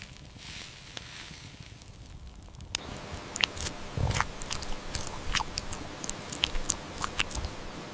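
Irregular crisp crunching and clicking that starts about three seconds in, after a stretch of faint background hiss.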